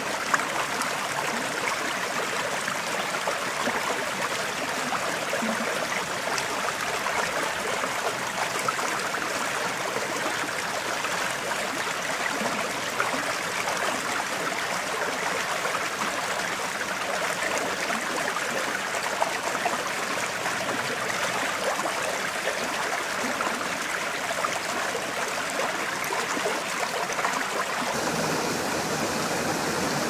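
Small stream flowing steadily over its bed: a continuous rush of running water.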